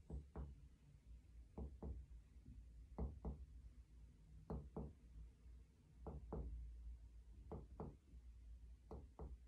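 Faint finger-on-finger percussion of a patient's chest: pairs of light taps, a pair about every second and a half, stepping down the rib spaces to find the lower border of the lung.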